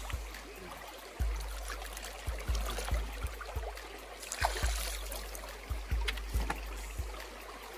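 Water running over a steady low rumble, with scattered short knocks and thumps.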